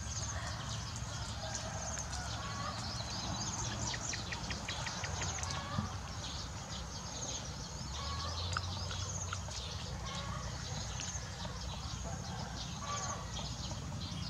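Many birds chirping and calling in a steady chorus, with a rapid trill about four seconds in and a few lower, shorter calls, over a steady low outdoor background noise.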